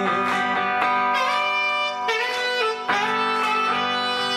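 Live rock band playing an instrumental passage, a saxophone carrying the melody over guitars.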